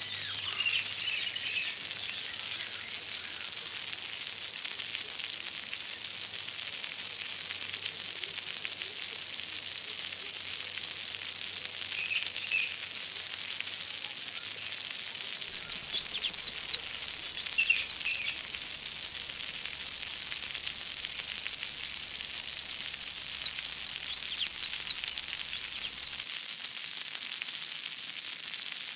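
Steady hissing water sound effect with a few short bubbly chirps, about a second in and again around 12 and 17 seconds in.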